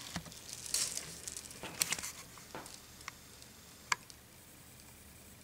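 Small objects being handled and set down: a few light taps, clicks and rustles, thinning out to near-quiet room noise after about four seconds.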